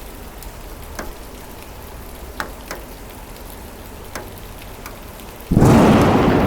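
Steady rain with scattered drips tapping. About five and a half seconds in, a thunderclap breaks suddenly and rolls on as the loudest sound.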